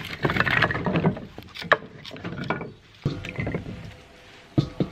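Split firewood pieces clattering together as they are tipped out of a mesh bag, then a few sharp wooden knocks as single pieces are set into a metal fire-pit bowl.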